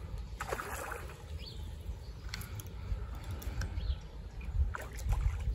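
Water splashing as a hooked carp thrashes at the surface by the reeds, with a noisy splash about half a second in and a few shorter splashes later, over a steady low rumble of wind on the microphone.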